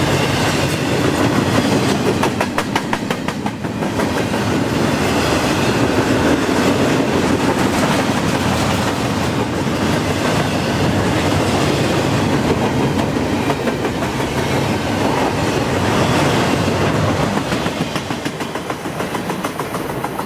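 Freight train of intermodal well cars rolling past, a steady rumble of steel wheels on rail with repeated clicking over the rail joints. It quietens near the end as the last car goes by.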